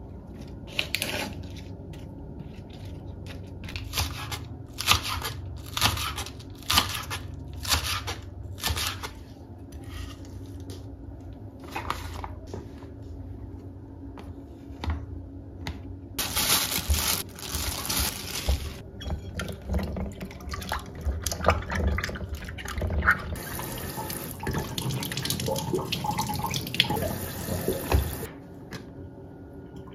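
Crisp crunches of iceberg lettuce being torn and cut on a wooden cutting board, about one a second. From about halfway, tap water runs into a stainless steel sink, splashing as tomatoes are rinsed, and stops near the end.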